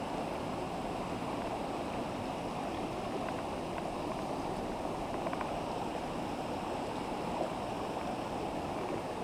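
Shallow, rocky stream running over stones: a steady rushing of water.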